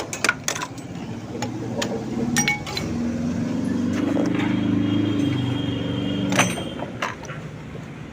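Metal tapping and clinking as the Hero Splendor Pro's starter motor is worked loose from the engine. A steady mechanical hum runs for about five seconds in the middle and stops with a sharp clack.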